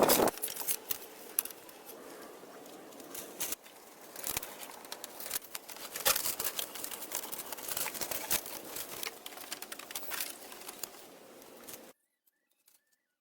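Irregular light clicks, snips and rustling, like small handwork with dry material; the sound cuts off abruptly to silence near the end.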